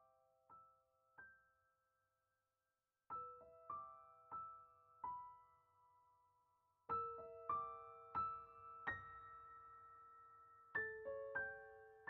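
Soft background piano music: short phrases of gently struck notes that ring out and fade, with a brief pause about two seconds in and fuller phrases in the second half.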